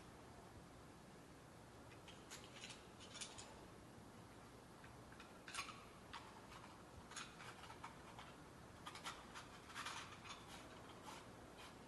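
Faint, irregular clicks and taps of a plastic dome security camera and its mounting plate being handled and fitted together, over near-silent room tone.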